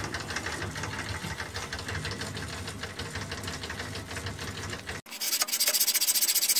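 Electrically motorised Hobbies treadle fret saw running steadily, its mechanism beating out a fast, regular rhythm. About five seconds in, this cuts off sharply to fast, even rasping strokes, like filing.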